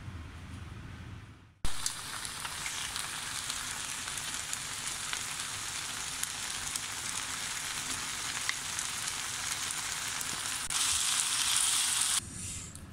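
Yaki udon with scallops and vegetables sizzling in a hot frying pan as it is stir-fried. The sizzle starts suddenly about a second and a half in, grows louder near the end, and cuts off abruptly.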